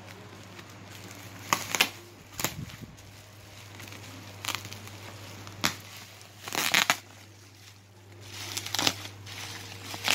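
Thin black plastic wrapping crinkling and rustling in about six short bursts as it is pulled open by hand, over a steady low hum.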